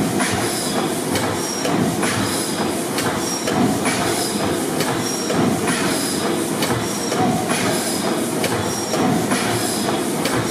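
600 HP Snow pipeline compressor gas engine running, its valve gear clicking and clanking in a steady repeating rhythm over a deep mechanical rumble.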